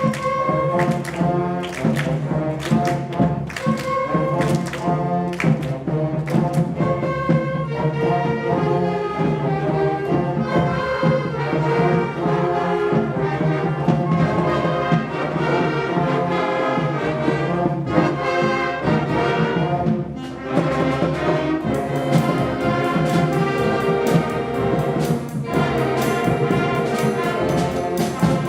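Elementary school concert band playing, with brass and woodwinds holding and moving between notes over regular drum strokes.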